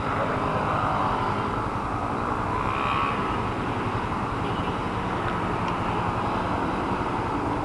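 Steady city traffic noise at a stop: a Yamaha Sniper 155's single-cylinder engine idling among other idling motorcycles and cars.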